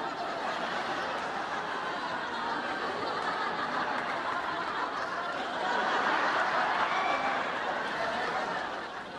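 Studio audience laughing, swelling about six seconds in and easing off near the end.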